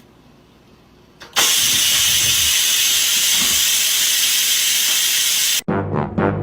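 A loud, steady hiss that starts about a second in, holds for about four seconds and cuts off suddenly, with brass music starting right after.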